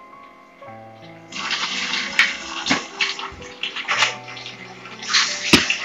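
Water running and splashing from a Leveluk SD501 water ionizer, starting about a second in, with a few sharp clicks. Background music with held notes plays throughout.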